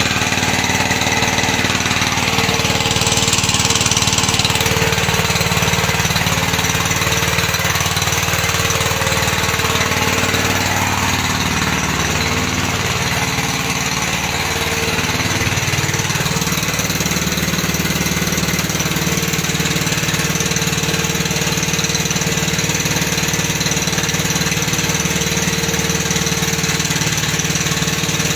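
Biogas-fuelled engine running steadily. About halfway through, its speed wavers, then settles on a slightly higher note.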